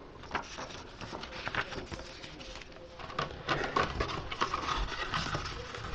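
Cardboard box and paper packaging being handled: irregular rustling and light taps, with a denser stretch of scraping rustle in the second half.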